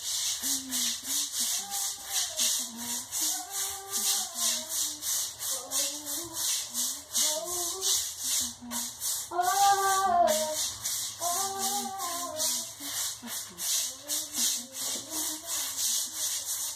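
Bristles scrubbing a wet, soapy floor in quick, even strokes, about three a second. A voice is heard in the background.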